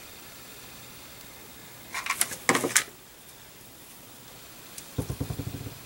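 Craft supplies being handled in a clear plastic container: a short burst of crisp, crinkly plastic rustling about two seconds in, then a brief low, fast rattle near the end.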